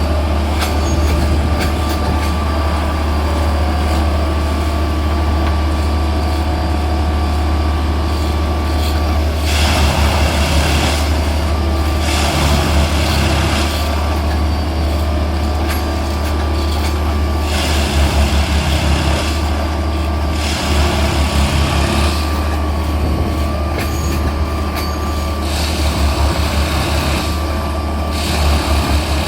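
Plasser & Theurer rail-lifting track machine running: its diesel engine makes a steady low hum with a thin steady whine above it. Louder noisy stretches of a second or two break in several times, about 9, 12, 18, 25 and 28 seconds in.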